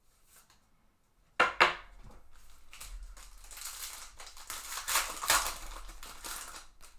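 A 2021 Bowman baseball card pack's wrapper being torn open: two sharp rips about a second and a half in, then steady crinkling of the wrapper.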